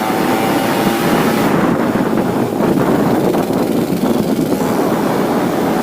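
Yamaha RX King's 135 cc two-stroke single-cylinder engine running under way, tuned rich, with wind noise on the microphone.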